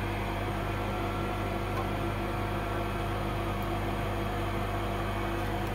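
A steady machine hum: several fixed tones over an even background noise, with no change or distinct events.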